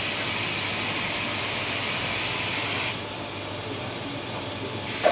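Steady hiss and machinery noise from an automatic foundry moulding line running on trial. The sound drops abruptly about three seconds in, and a sudden loud knock with a short ringing tone comes at the very end.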